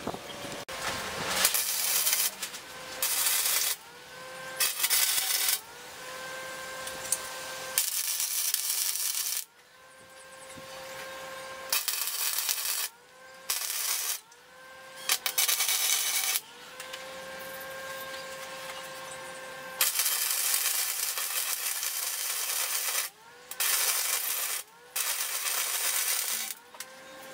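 Arc welding on steel square tubing: the arc's crackling hiss comes in a series of bursts of one to four seconds, each starting and stopping abruptly. A faint whine rises and then holds with many of the bursts.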